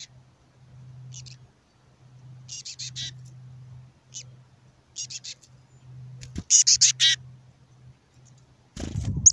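Black-capped chickadee, the female, giving the raspy fledgling-like begging call: short runs of harsh, rasping notes repeated every second or so, the loudest run about two-thirds of the way through. A low rumble starts near the end.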